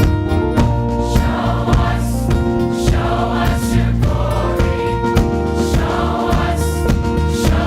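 Church choir singing a gospel song together, holding long notes over instrumental accompaniment.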